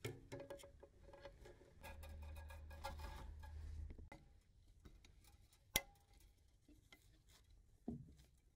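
Faint scattered clicks and light clinks of small metal parts and hand tools being handled, with one sharp click about six seconds in and a low hum from about two to four seconds.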